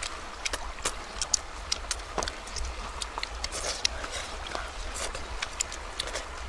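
Eating noises: irregular wet lip smacks and chewing clicks, several a second, from people eating fish with their fingers, over a low steady rumble.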